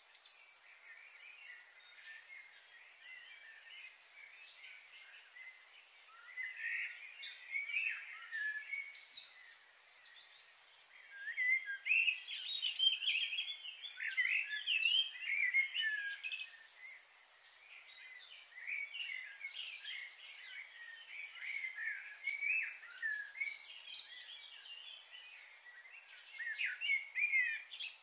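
Small birds chirping and calling in short, scattered notes over a faint steady hiss, busiest around the middle and again near the end.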